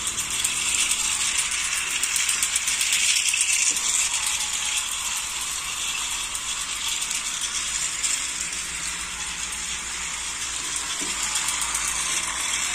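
Battery-powered plastic toy trains running on plastic track, their small gear motors and wheels making a steady, fast clicking whir.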